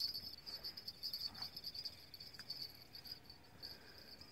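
Insects chirping in a steady, high-pitched pulsing trill, with a couple of faint soft clicks.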